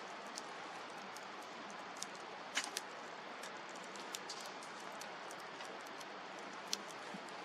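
Wood campfire crackling: a steady hiss with irregular sharp pops and snaps, a few louder pops standing out.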